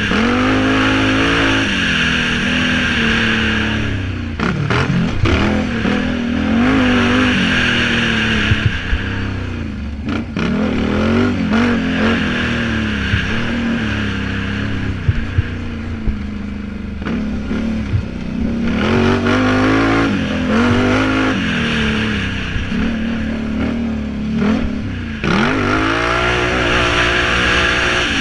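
Can-Am Renegade 800R ATV's V-twin engine, heard close from the machine itself, revving up hard and dropping back again and again as the throttle is opened and closed on a dirt track. A few sharp knocks come through from the bumps.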